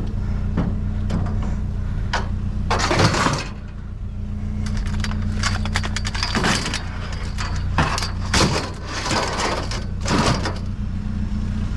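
Truck engine idling with a steady low hum. Over it come several short bursts of clatter and rustling: one about three seconds in, then a cluster between six and ten seconds.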